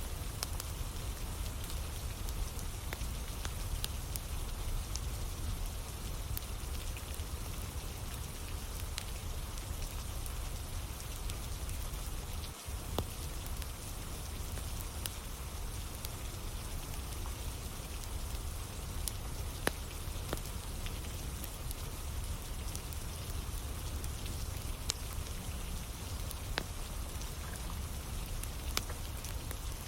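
Steady rain falling, with a wood campfire crackling: scattered sharp pops over an even hiss.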